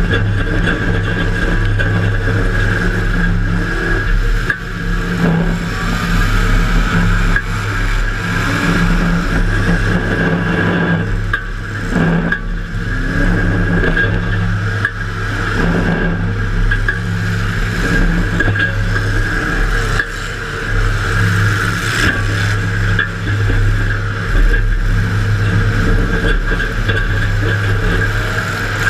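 Demolition derby car's engine running hard and revving, heard from inside the car, with a few sharp knocks.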